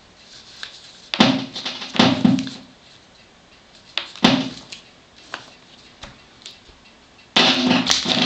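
Disco music from the phone cutting in and out in four short bursts as the headphone plug and splitter adapter are worked in the phone's headphone socket, with a few sharp clicks from the plug between them.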